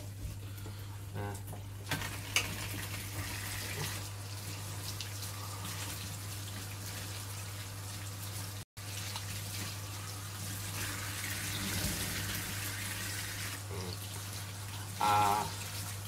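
Kitchen tap running into the sink, a steady splashing hiss, with a couple of light knocks near the start and a brief break about halfway.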